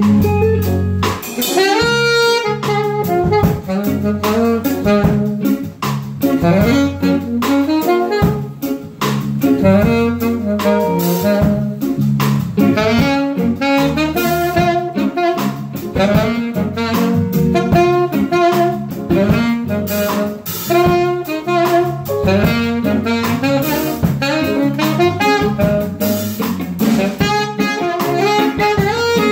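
Alto saxophone playing a jazz solo of many quick, changing notes, backed by keyboard, low bass notes and drums.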